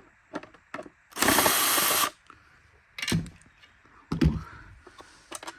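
A screwdriver backing a screw out of the vacuum's plastic switch cover: one loud, dense ratcheting burst of about a second, followed by a couple of knocks and small clicks as the parts are handled.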